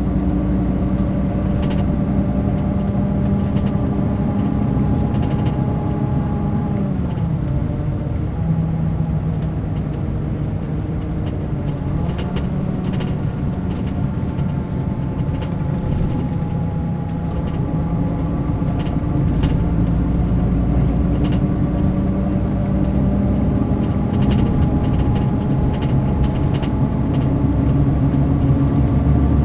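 Mercedes-Benz O500 RSD BlueTec5 coach's diesel engine running, its pitch dropping about seven seconds in and climbing again near the end.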